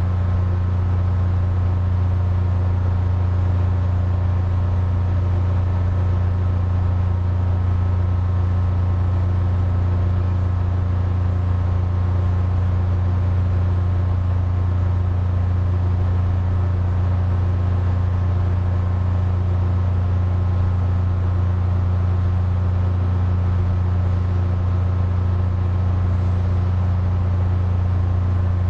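Air conditioner running steadily: a constant low hum with a steady whirring hiss over it.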